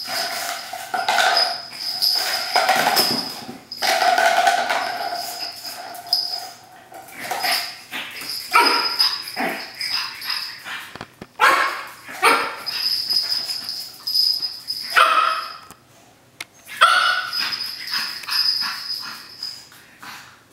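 Pug puppy barking and yipping in play, in repeated bursts of a second or two with short pauses between.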